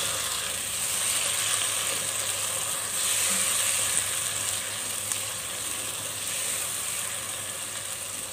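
Sliced onions and chopped tomatoes sizzling steadily in hot oil in a pan while being stirred with a spoon, with a few faint ticks.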